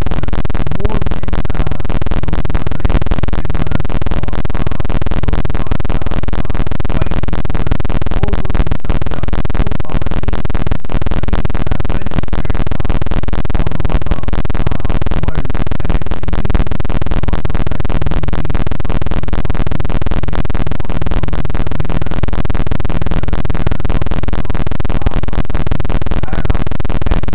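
Loud, steady harsh noise filling the whole sound track with no pauses: garbled, distorted audio in which no words can be made out.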